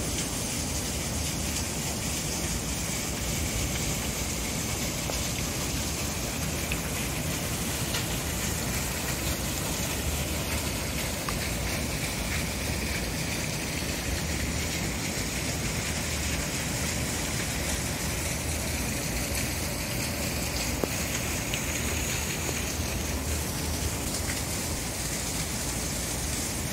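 Steady rush of splashing water from an outdoor memorial fountain, unchanging throughout.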